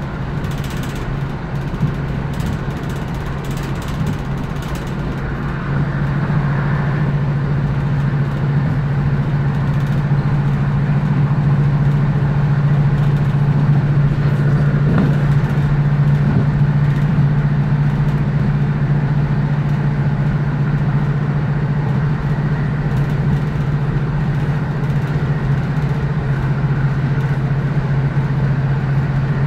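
Cabin sound of a Class 156 Sprinter diesel multiple unit under way: a steady drone from its underfloor Cummins diesel engine over wheel-and-rail rumble. The drone grows louder about six seconds in and then holds steady.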